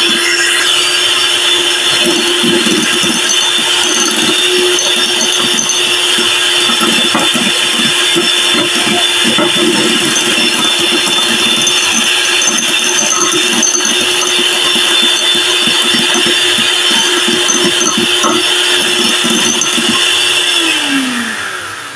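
Electric hand mixer running steadily, its beaters whipping cream and melted chocolate into chocolate cream in a glass bowl. Near the end the motor is switched off and winds down with a falling pitch.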